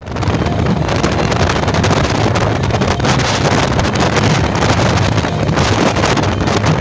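Wind buffeting the microphone over the steady running of many small motorcycle engines travelling together.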